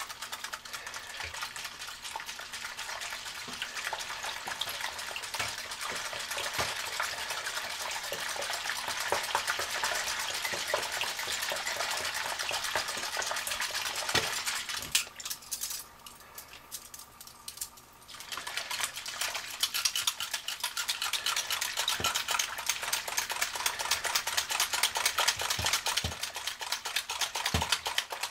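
A cuckoo clock's metal movement being scrubbed by hand in a sink of hot soapy water: rapid scrubbing and sloshing with small clicks of metal, pausing for about three seconds a little past the middle.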